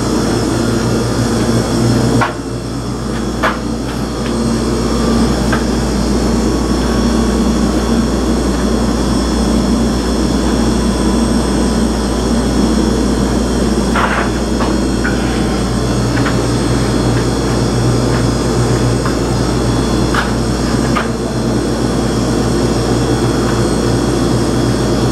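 Steady low mechanical drone with a constant hum, broken by a few faint clicks.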